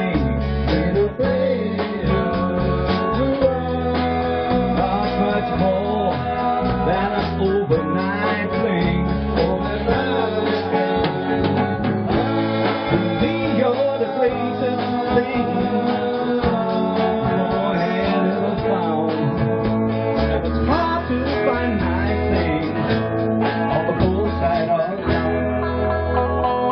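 Music with guitar, played live at a band rehearsal.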